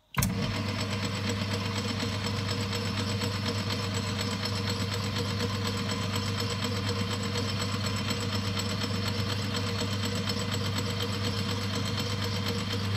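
Boxford Model A lathe starting up abruptly, then running steadily with an even mechanical hum from its motor and drive, while a centre drill in the tailstock is fed into a stainless steel workpiece.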